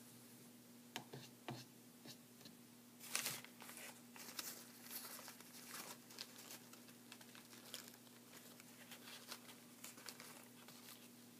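Faint rustling, crinkling and light taps of painting supplies being handled on a table, a paper towel among them, loudest about three seconds in, over a steady low hum.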